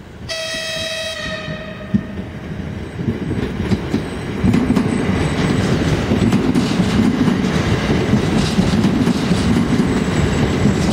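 Škoda 16Ev electric train sounds one short horn blast, a single slightly falling tone lasting just over a second. Then the train runs past close by, its wheels rumbling on the rails, growing loud from about four seconds in.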